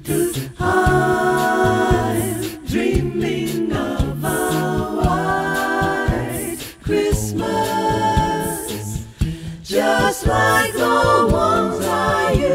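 Background music: a cappella singing by a group of voices in harmony, in sung phrases with brief breaks between them.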